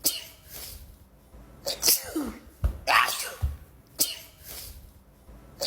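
A woman sneezing in a rapid fit: about five sharp sneezes in under six seconds, the same short run of sneezes repeating as a loop.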